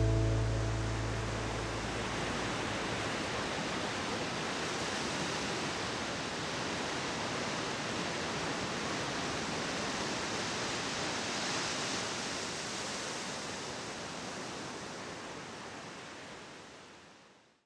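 Steady rush of water, an even hiss with no rhythm that fades away near the end, as the tail of soft background music dies out at the start.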